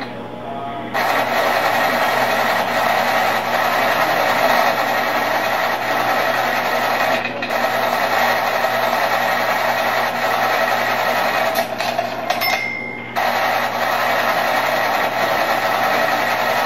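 Continuous rapid clatter of a ticker-tape machine, played back as the installation's soundtrack in time with the projected mouse's scratching. It breaks off briefly just after the start, about seven seconds in, and again for about a second near twelve seconds.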